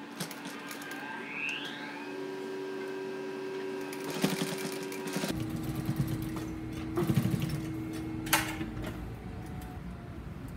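Industrial sewing machine running as it top-stitches a T-shirt neckband, a steady motor hum with a change about five seconds in to a deeper rumble, and a few short clicks later on.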